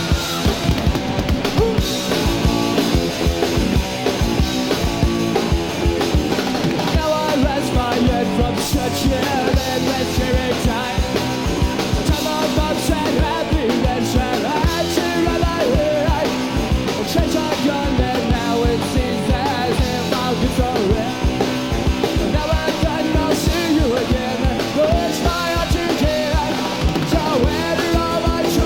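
Three-piece punk rock band playing live, with electric guitar, bass and drum kit driving a fast, steady beat.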